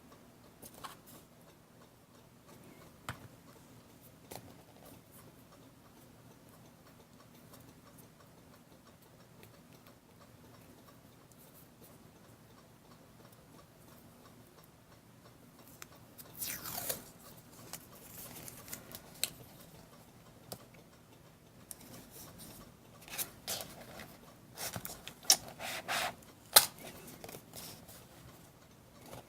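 Craft materials handled by hand at a desk: a few small clicks at first, then from about halfway through bursts of crinkling and rustling with several sharp clicks near the end.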